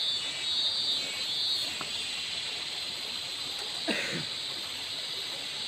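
Shallow river running over stones and logs, a steady rushing hiss. A short voice sound, falling in pitch, about four seconds in.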